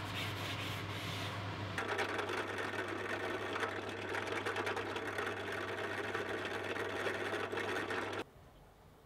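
Drill press motor running while a twist bit bores small magnet holes into a mahogany block; the sound stops abruptly about eight seconds in.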